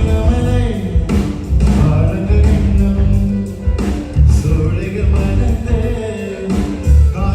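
A live band playing a song with a singer, with drums, bass and keyboard pushed through a PA system and a steady beat.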